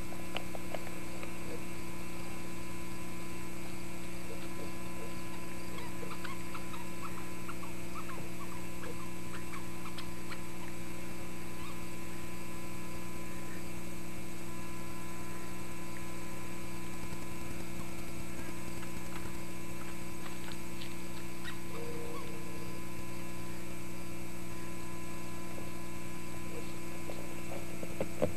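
Steady electrical mains hum on the recording: several fixed low tones at an even level. A few faint brief chirps and ticks come through it about six to eleven seconds in.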